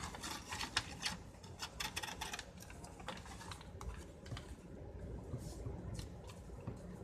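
A sheet of paper being folded and creased by hand, with quick crisp crackles and rustles that thin out after about two and a half seconds into occasional soft ticks.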